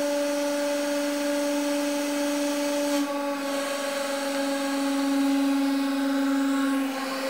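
A 150-ton hydraulic press is running under load with a steady droning whine as its ram crushes a pile of bubble wrap. The load on it is building to more than twenty tons, and the tone shifts slightly about three seconds in.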